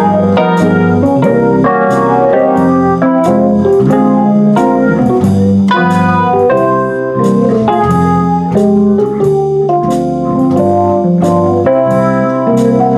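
Jazz improvisation on a Yamaha digital keyboard played with both hands: changing chords over a low bass line, the notes sustained and overlapping.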